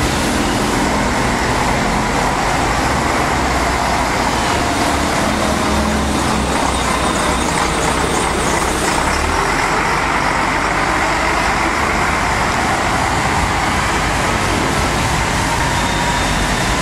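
Volvo B10M bus's six-cylinder underfloor diesel engine running steadily as the bus pulls away and drives off, with tyre hiss from the wet road.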